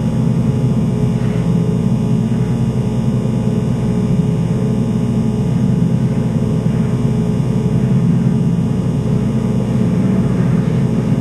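A loud, steady low drone with a rumbling undertone that holds without a break: a dark ambient sound-design bed of the kind laid under a horror trailer.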